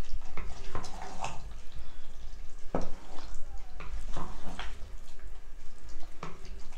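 Wooden spoon stirring thick dinuguan (pork stewed in pork blood) in a pot, wet squelching and sloshing with irregular knocks and scrapes of the spoon against the pot.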